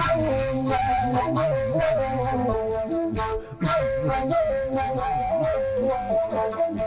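Instrumental closing theme music: a stepping lead melody over a moving bass line, with a few drum hits.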